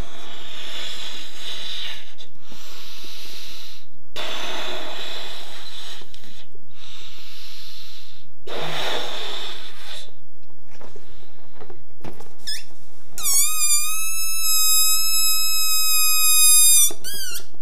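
Breath blown hard into a latex balloon in three long puffs a few seconds apart. Near the end, a high, wavering squeal for about four seconds as air escapes through the balloon's stretched neck, cutting off abruptly.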